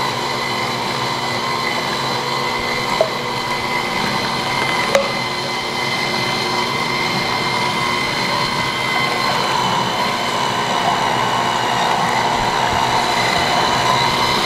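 Two slow masticating cold press juicers, an AMZChef horizontal and a Dash vertical, running together while apples are fed in. Their electric motors make a steady whine with several tones, and two light clicks come about three and five seconds in.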